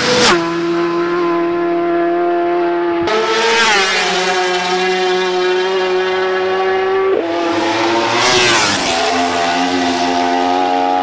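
Racing superbikes passing at high speed one after another, each engine holding a high, steady note before its pitch drops sharply as it goes by. Several such pass-bys.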